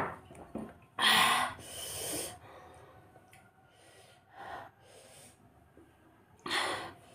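A woman's loud, breathy exhales blown out through pursed lips: a long double huff about a second in, a softer one midway and another strong one near the end.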